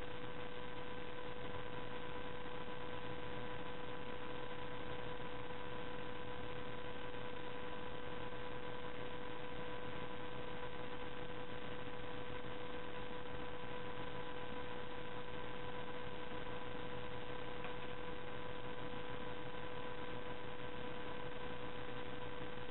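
A steady electrical hum, a constant pitched tone with overtones, over an even hiss. It does not change, and no handling sounds stand out.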